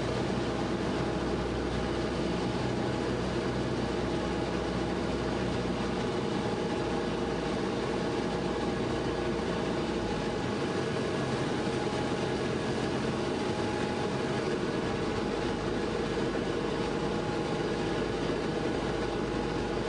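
Grumman single-engine light airplane's piston engine and propeller running steadily, heard inside the cabin during the final approach to land. The deepest part of the drone drops off for a few seconds in the middle.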